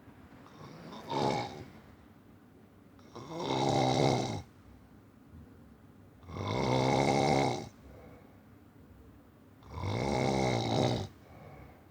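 Snoring: a short snore about a second in, then three long, low-pitched snores about three seconds apart, with a faint breath between them.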